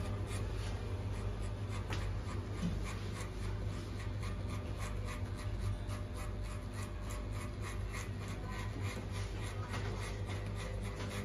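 Cordless electric hair clipper buzzing steadily while it is worked against the side of the head to cut a fade. A fast, irregular crackle of blades cutting hair runs over the hum.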